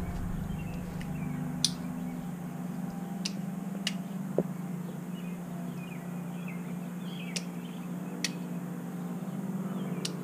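Sharp single clicks every second or so from the light bar's handheld switch being tried, over a steady low hum, with a few faint bird chirps.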